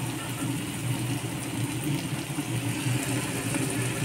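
Steady mechanical hum with an even hiss over it, unchanging throughout.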